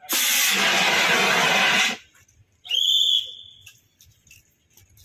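Dry-powder fire extinguisher discharging in one loud hiss for about two seconds, putting out a tray fire, then cutting off. About a second later comes a single steady whistle blast lasting about a second.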